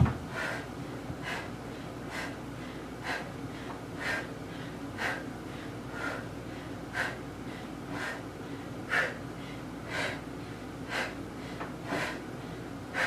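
A woman breathing hard under exertion, a sharp exhale about once a second in rhythm with each tricep-dip rep.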